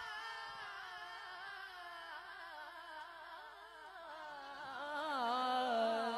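A male naat reciter sings one long drawn-out note into a microphone, unaccompanied, the pitch sliding slowly down and then rising and swelling louder about five seconds in.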